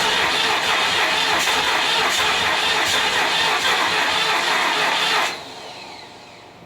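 Ford 5.4L V8 in a 2006 E350 van running with a loud, harsh, hissing noise. It cuts off a little over five seconds in, leaving a falling whine as it winds down. The noise is a fault that the owner has not traced: unplugging the coils on cylinders 1 to 4 does not change it, and the coils test good.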